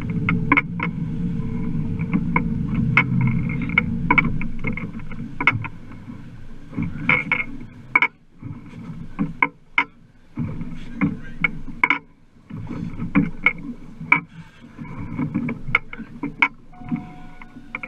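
Sounds aboard a small fishing boat: a low, uneven rumble with many sharp, irregular knocks and slaps, the rumble easing off partway through.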